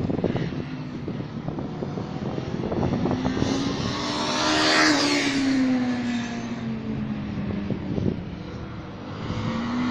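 Honda motorcycle engine on a race circuit, rising in pitch and loudness as it approaches, loudest about five seconds in, then dropping away as it passes, with the next rise starting near the end. Wind knocks on the microphone now and then.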